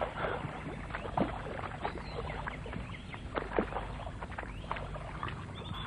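Boots splashing and squelching through mud and shallow water as a file of soldiers walks, in irregular uneven steps with a few louder splashes.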